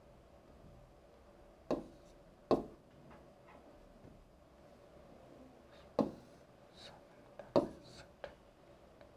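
A pen writing on a board: a few sharp taps as it strikes the surface, about four loud ones and some fainter strokes between, over a faint steady hum.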